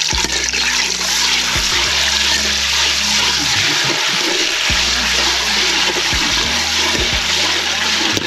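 Tomato paste sizzling as it fries in hot coconut oil in an aluminium pot, stirred with a metal spoon. The sizzle is loud and steady.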